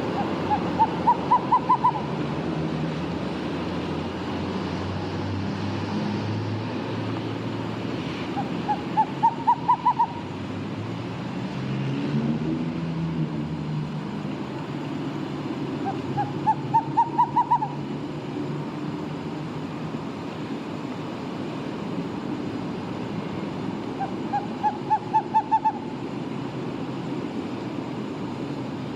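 Screech owl calling: four short runs of rapid hoots, each slightly rising in pitch, roughly every eight seconds, over a steady low background rumble.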